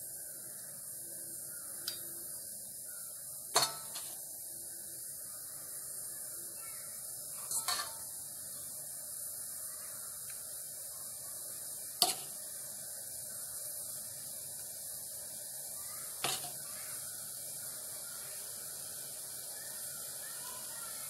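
Steel spoon scooping loose rice-flour puttu mixture into a steel puttu mould, with a few sharp clinks of the spoon against the metal over a faint steady hiss.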